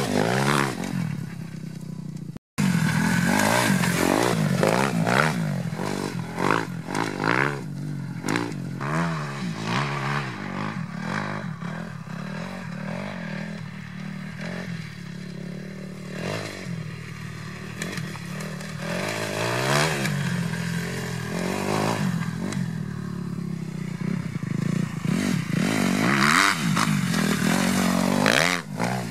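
Kawasaki KX250F single-cylinder four-stroke dirtbike engine through an FMF Megabomb exhaust, revving up and down again and again as it is ridden hard, with a brief break about two seconds in. It is loudest near the start and the end and quieter in the middle.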